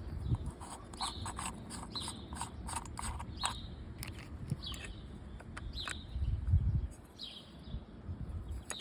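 Light clicks, taps and scrapes of small metal parts being handled and unscrewed as a Keihin carburetor is taken apart, with a dull thud about two-thirds of the way through. A bird chirps about once a second in the background.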